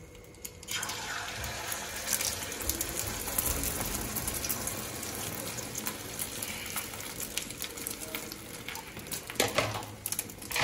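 Beaten egg and onion mixture hitting hot oil in a frying pan and sizzling steadily. The sizzle starts suddenly about a second in.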